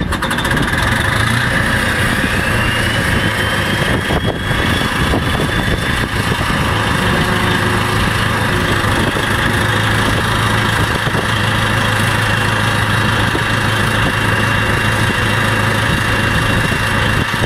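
An engine idling steadily, with a whine that rises in pitch about two seconds in and then holds.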